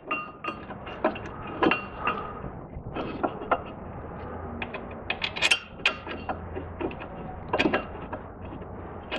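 Irregular metallic clinks and knocks of a Saturn SL1's steel front brake caliper mounting bracket being fitted by hand over the new brake rotor, a few of them ringing briefly.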